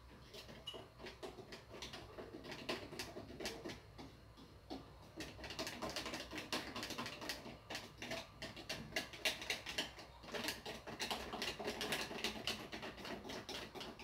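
Cake batter being stirred by hand to mix in baking powder, the utensil clicking and scraping against the side of the container in quick, irregular taps.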